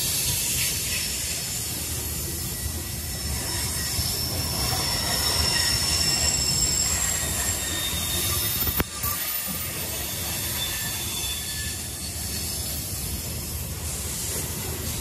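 Freight railcar wheels squealing against the rails as cars roll by, several high squeal tones coming and going over a steady low rumble. A sharp click sounds a little past halfway.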